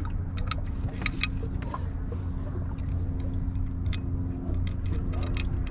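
Steady low machine hum with a couple of held tones, with scattered small clicks and taps from hand work on the wiring.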